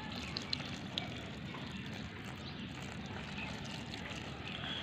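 Water poured in a thin stream from a plastic container onto loose dry soil, a faint steady trickle as it soaks in, with a few light clicks in the first second.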